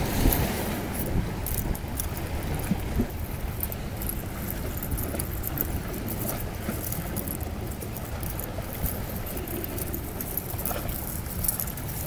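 Small waves washing onto a pebbly shore with a steady low wind rumble on the microphone, and many light, scratchy ticks.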